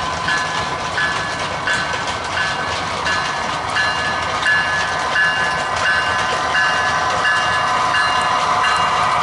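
A train running, with a bell or warning signal sounding steadily at about two strokes a second.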